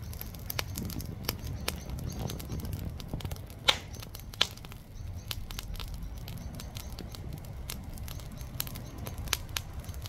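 Lump charcoal burning in a metal grill in the early, flaming stage of lighting: scattered sharp crackles and pops over a steady low sound of the fire, with two louder pops about four and four and a half seconds in.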